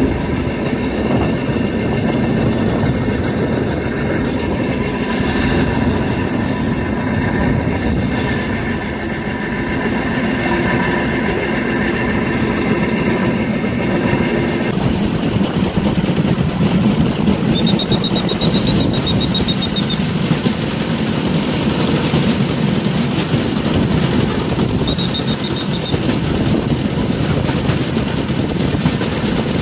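Railway motor trolley running along the track, its small engine running steadily over a dense low rumble. About halfway the sound changes abruptly, and later a brief high tone sounds twice.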